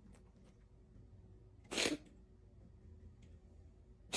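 A cat sneezing once, a single short sneeze a little under two seconds in.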